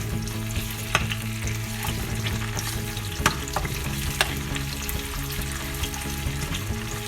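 Spice paste sizzling as it fries in hot oil in a pan while being stirred, with the spatula clicking against the pan a few times, loudest about three seconds in.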